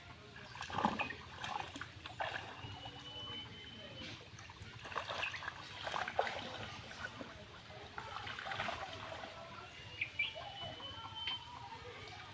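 Shallow muddy water splashing and trickling irregularly as hands grope through it, feeling for fish.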